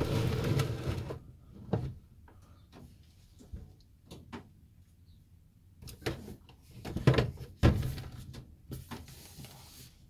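Irregular knocks, rubs and rustles of plastic toys and wooden boards being handled and shifted by hand. They are loudest in the first second and come again in a cluster about six to eight seconds in.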